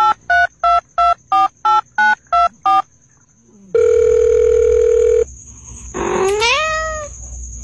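A run of about nine short electronic beeps, evenly spaced about three a second like phone keypad tones, then a steady electronic tone for about a second and a half. About six seconds in, a cat meows once, rising in pitch.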